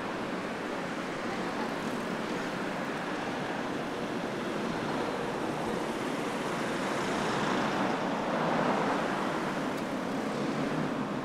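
Road traffic noise, a steady hiss of tyres and engines that swells and fades between about seven and nine seconds in, as a vehicle passes close by.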